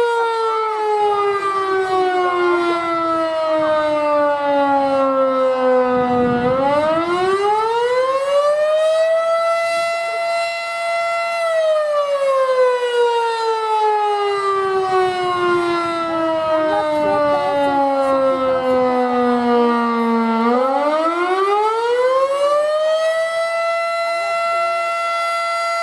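Federal Signal Model 5 outdoor warning siren sounding its attack signal, a wailing rise and fall. The pitch winds slowly down, climbs back up about six seconds in and holds at full pitch, then winds down again and climbs once more about twenty seconds in.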